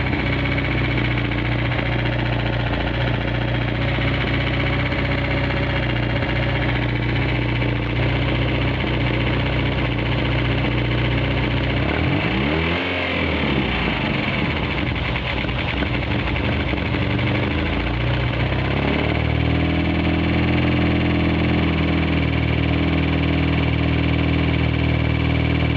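Turbocharged 4G63 four-cylinder engine of a first-generation DSM Eagle Talon TSi AWD idling, with one quick rev and drop back about halfway through and a slight change in the idle near three quarters in. The owner takes the knock in it for rod knock.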